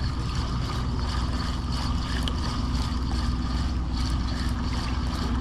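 Steady, unchanging engine drone, a low hum with a constant pitch.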